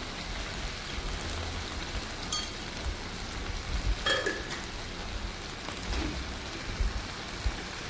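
Okra and anchovies sizzling in a hot wok, a steady crackle of frying, with a few faint knocks about two and four seconds in.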